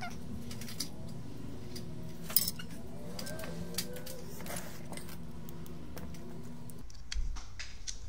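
Steady low hum with scattered light clicks and taps of bench work; the hum cuts off about seven seconds in.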